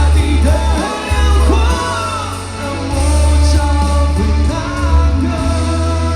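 Live pop-rock band playing a ballad, with heavy bass and singing that carries no clear words.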